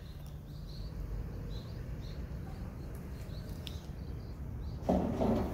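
A small bird chirping repeatedly in short high notes, about two or three a second, over a steady low rumble. A brief louder muffled burst comes near the end.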